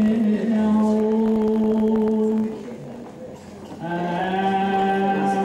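A singer chanting long held notes: one sustained phrase, a short break with a few faint taps, then a second long held phrase.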